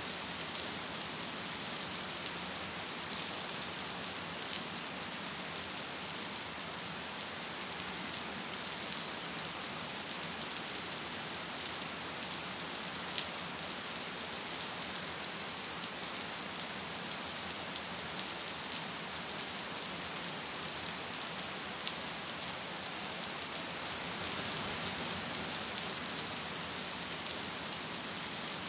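Gentle rain falling steadily: an even hiss with faint scattered taps of individual drops.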